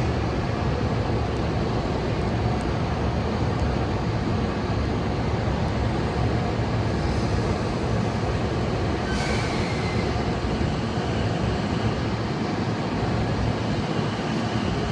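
Steady rumble of a Rinkai Line 70-000 series electric train at the station platform, with a short burst of hiss about nine seconds in.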